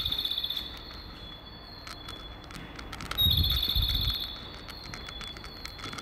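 Recorded bird chirps from a Japanese station's guidance speaker: a high, rapidly pulsed trill about a second long, heard at the start and again about three seconds in. This kind of recorded birdsong marks a stairway for visually impaired passengers.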